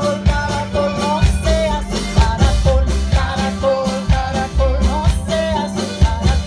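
Live acoustic folk band playing a song with a steady beat, with mandolin, small strummed guitar, upright bass, accordion and a horn, and a wavering melody line on top.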